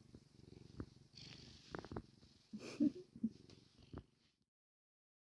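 Domestic cat purring close up, a faint low rumble with a few soft clicks; the sound cuts off to silence about four seconds in.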